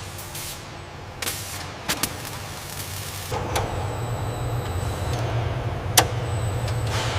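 Steady low machinery hum that steps up louder about three seconds in, with a handful of sharp clicks or clanks, the loudest near the end.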